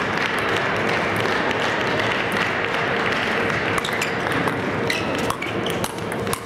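Table tennis rally with sandpaper rackets: sharp clicks of the ball off the bats and table, starting about four seconds in, over the steady hum of a large hall.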